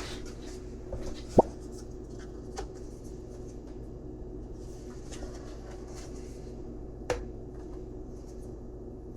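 Steady low hum in a small room, with a few light clicks and knocks: a sharp knock about a second and a half in and another near the end.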